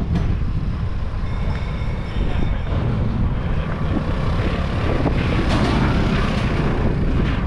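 A motor scooter rides up and passes close by with its small engine running, over a steady low rumble of street traffic. The scooter grows louder in the second half.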